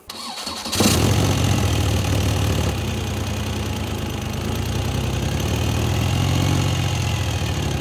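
Radial Motion three-cylinder radial engine idling steadily, coming in abruptly just under a second in.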